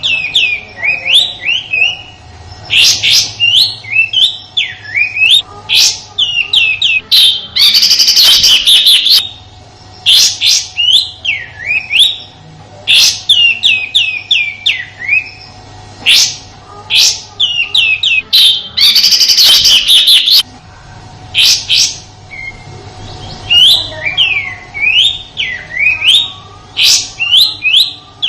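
Kapas tembak songbird calling: quick runs of sharp downward-slurred whistled notes, broken twice by a harsh rattling burst of about a second and a half, the rough 'tembakan' call.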